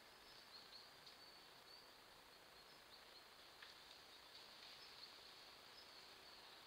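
Near silence: a faint steady woodland hiss, with a few faint, short high chirps and a faint click a little after the middle.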